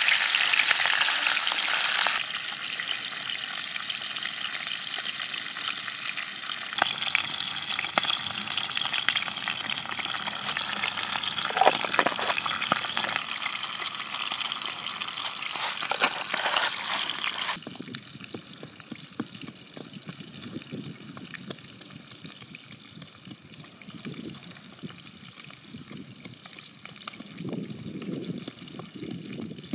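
Fish frying in hot oil in a pan: a loud sizzle for the first couple of seconds, then quieter sizzling and crackling with scattered clicks. Past the middle it drops to a quieter stretch, with soft dull thuds of a stone pestle pounding chilies and garlic in a coconut-shell mortar near the end.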